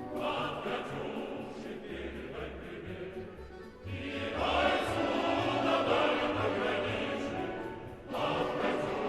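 Music with a choir singing; it swells about four seconds in and dips briefly near the end.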